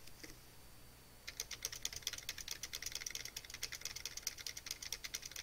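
Fast typing on a computer keyboard, starting about a second in: a quick, steady run of key clicks as short numbers are entered and Enter is pressed over and over.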